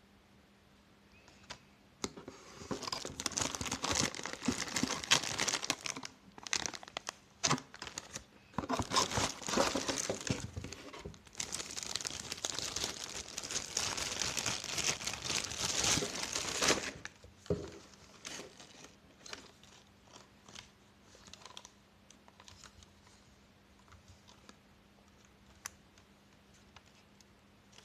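Crinkling and rustling in irregular bursts for about fifteen seconds, then a few faint clicks and taps.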